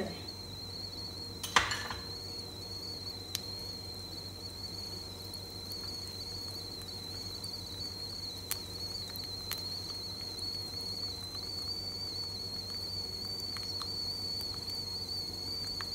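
Mustard seeds frying in hot oil in a small aluminium kadhai: a faint sizzle that slowly grows as the oil bubbles up around the seeds, with a few sharp clicks, the loudest about a second and a half in. A steady high-pitched whine runs throughout.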